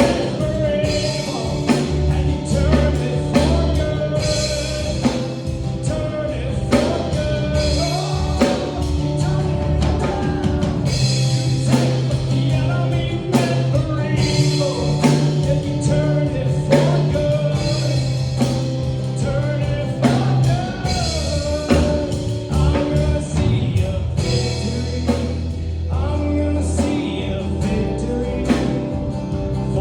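Live worship band playing a rock-style song with drums, bass, guitar and singing, a steady beat throughout.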